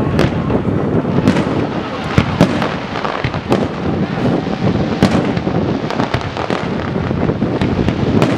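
Aerial fireworks shells bursting in a quick, irregular series of sharp bangs and crackles, one after another over a continuous low rumble.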